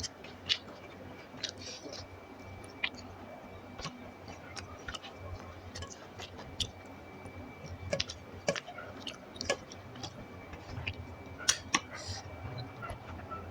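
Close-miked eating sounds: soft chewing with irregular small mouth clicks and smacks, a few louder ones in the latter half.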